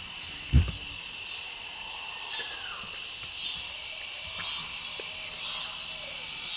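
Insects chirping steadily in a field at dusk, with a call that pulses about every half second. A single heavy thump about half a second in is the loudest sound.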